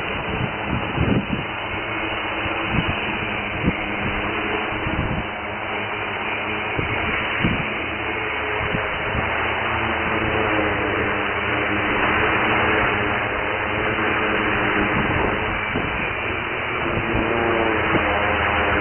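Hexacopter's six electric motors and propellers running at flight power, a steady buzzing drone whose pitch wanders as the craft lifts off and hovers close overhead, most noticeably near the end. Low gusty thumps hit the microphone in the first few seconds.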